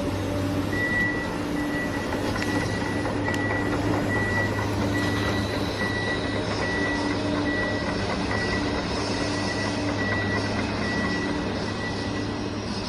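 Reversing alarm beeping steadily, about two beeps a second, over a constant motor hum.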